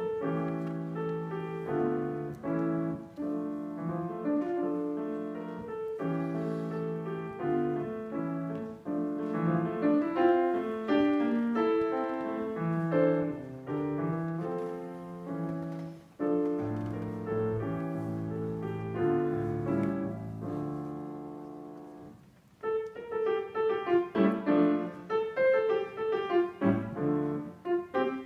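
Grand piano played solo, a flowing run of many notes. A little past twenty seconds in, the playing fades into a brief pause, then resumes with short, accented notes.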